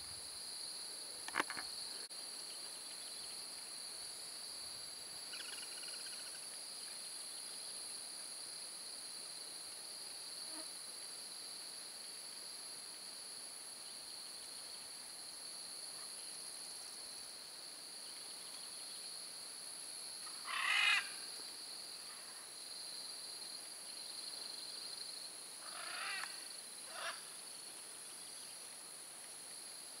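Steady chorus of insects, a continuous trill at two high even pitches, with a few short bird calls over it: a brief call near the start, a faint one a few seconds later, the loudest about two-thirds of the way in, and two more shortly after.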